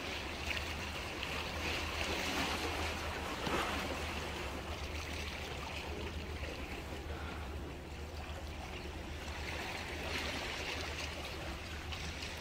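Seawater washing against breakwater tetrapods: a steady, even wash with a constant low rumble underneath.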